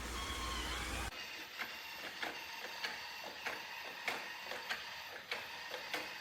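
A steady whooshing run cuts off suddenly about a second in. Then a robot vacuum's mechanism clicks evenly, roughly every 0.6 s.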